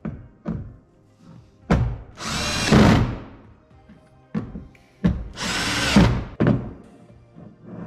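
Power drill running in two bursts of about a second and a half each, with a few short knocks between them, over background music.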